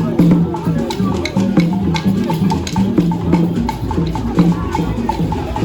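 Percussion-driven music: drums under a quick, regular wood-block-like click, about four strokes a second.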